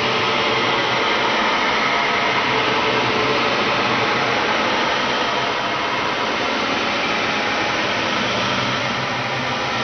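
A steady, harsh wall of hiss-like noise with faint droning tones inside it, holding level throughout, used as a horror sound effect.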